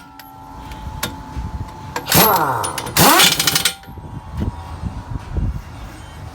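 Pneumatic impact wrench running in two loud bursts about two and three seconds in, its pitch sliding down as it spins, followed by quieter knocks.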